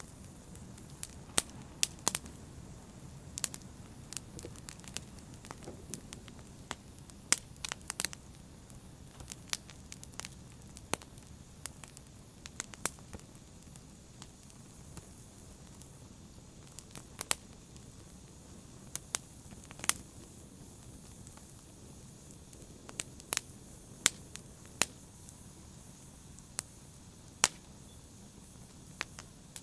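Fire burning in a fireplace: irregular sharp crackles and pops, some coming in quick clusters, over a low, steady rush of the flames.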